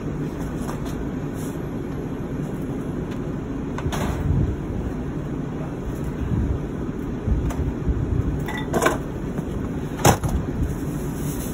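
Steady low rumble with a few scattered knocks and rustles of items being handled in a box, the sharpest knock about ten seconds in.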